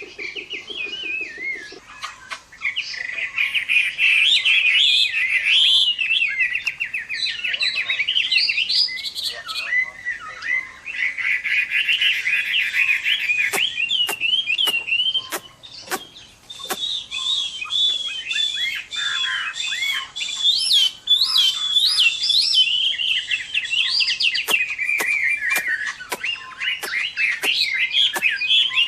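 Chinese hwamei (melodious laughing thrush) singing its loud 'fighting' song: fast, varied runs of whistled notes and trills, broken by brief pauses. Sharp clicks are scattered through the second half.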